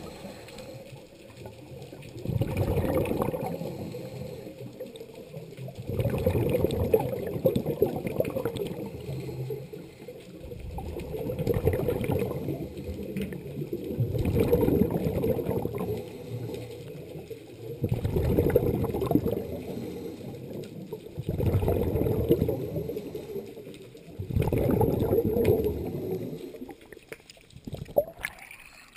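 Scuba regulator underwater: bursts of exhaled bubbles gurgle out about every three to four seconds in a steady breathing rhythm, with quieter gaps for each inhalation between them. A few sharp splashes come near the end as the water surface is reached.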